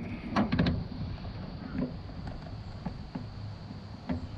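Hand tools being handled: a quick cluster of three or four sharp clicks about half a second in, then a few fainter taps, over a steady low hum.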